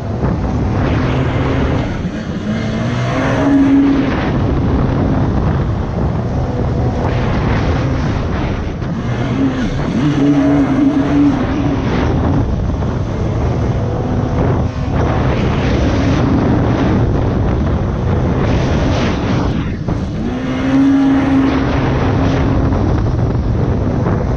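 Yamaha GP1800 four-stroke jet-ski engine in an FZR hull running hard at speed, heard from onboard with wind on the microphone and water spray. The engine note drops briefly and climbs again three times as the throttle is eased and reopened.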